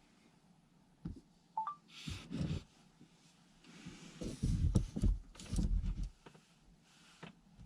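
Quiet room tone broken by a click, a short chirp stepping up in pitch, then a few seconds of rustling and dull thumps like something being handled or moved about.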